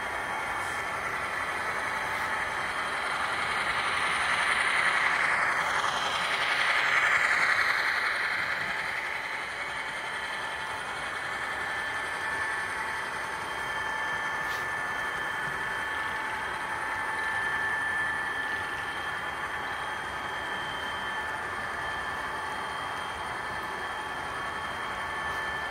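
Model freight cars of a long weighted train rolling past on the layout's track: a steady rattle of small metal wheels on the rails. It swells briefly about five to eight seconds in as cars pass close by.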